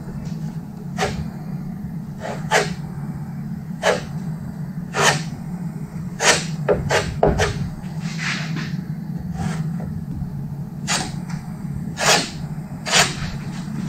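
Body-filler spreader scraping in short strokes about a second apart, spreading a skim coat of filler over the top of a fiberglass Corvette rear spoiler. A steady low hum runs underneath.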